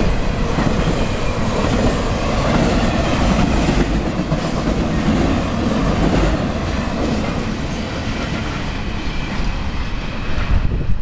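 Intermodal freight train cars rolling past on the rails, wheels clacking and rumbling steadily, getting somewhat fainter in the last few seconds as the tail end goes by.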